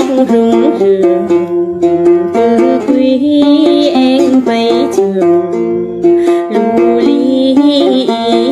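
Then music: a fast, bright run of plucked notes on a đàn tính, the Tày long-necked gourd lute, with a voice singing over it.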